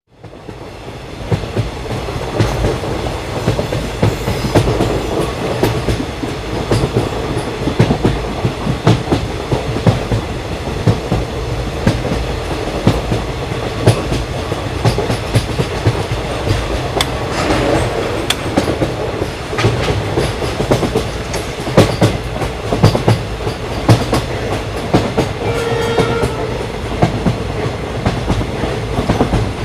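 Indian Railways ICF passenger coaches running on the track, fading in over the first second or two. The wheels make a continuous rumble with frequent sharp clickety-clack knocks as they cross rail joints. A train horn sounds briefly about 26 seconds in.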